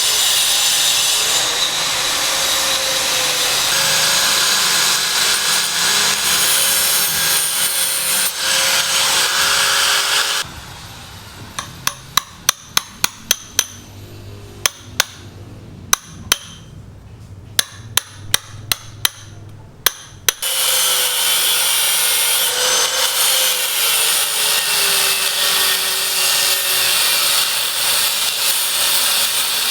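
Construction work: a power tool runs steadily for about ten seconds, then stops, and a hammer strikes about twenty times in quick runs before the power tool starts up again.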